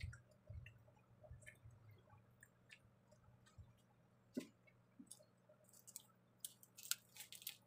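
Faint sounds of eating by hand: scattered small wet clicks and smacks of chewing, thicker near the end, over a faint low steady hum.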